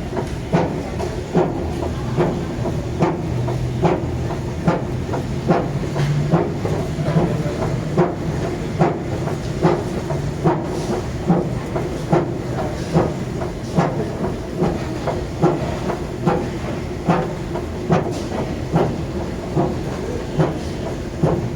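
New Schindler escalator running upward, a steady mechanical hum with a sharp, regular clack about every 0.8 seconds: the abnormal noise of the machine.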